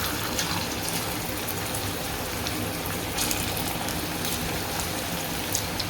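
Marinated chicken pieces frying in a little hot oil in a pan: a steady sizzling hiss with a few faint spatters.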